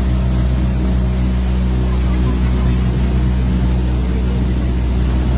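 Tour boat's motor running at a steady speed, a low even hum that does not change.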